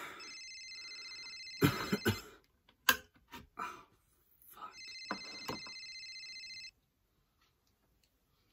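A telephone ringing with a warbling electronic trill, twice, each ring about two seconds long, the ringing stopping a little over six and a half seconds in. Sharp knocks and rustling come between and over the rings, the loudest about one and a half and three seconds in.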